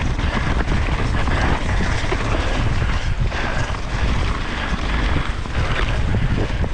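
Wind buffeting an action camera's microphone over the steady rumble and rattle of a mountain bike descending a downhill trail: tyres rolling over the ground and the bike's frame and parts shaking.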